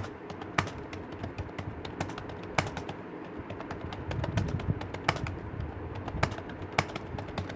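Typing on a computer keyboard: irregular keystroke clicks at an uneven pace, with a pigeon cooing in the background.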